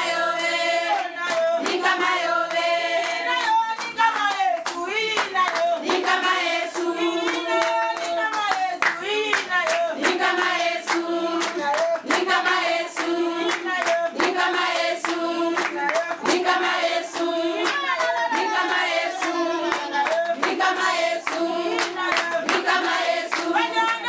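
A group of people singing together with rhythmic hand clapping.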